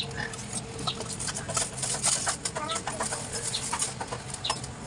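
Light scattered clicks and scrapes of hands turning a new spin-on oil filter onto its mount on an Isuzu D-Max diesel engine, with a few short high squeaks about two and a half seconds in.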